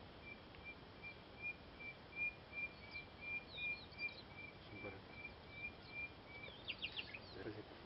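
Faint birdsong: one bird repeating a single high note about three to four times a second for some six seconds, with a few quick falling chirps from other birds around it.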